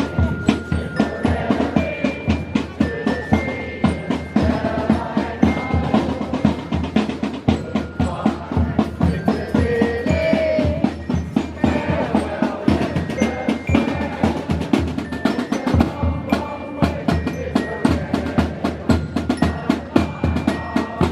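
Live band music: a busy drum beat with rapid strikes and rolls, and a bright ringing melody of short held notes over it.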